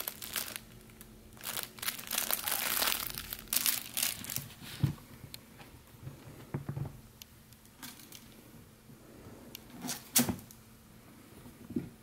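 Crinkly rustling of a fabric cat play tunnel as a kitten scrambles inside it, in bursts through the first half, followed by a few scattered soft thumps and clicks.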